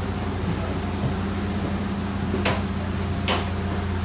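Footsteps on the metal treads of an aircraft boarding stair, two sharp knocks less than a second apart, over a steady low machine drone.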